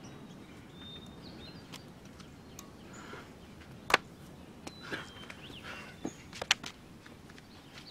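Forest ambience with a steady low background hiss and scattered short bird chirps. There is one sharp knock about four seconds in and a quick cluster of clicks and scuffs around six seconds, as two men grapple.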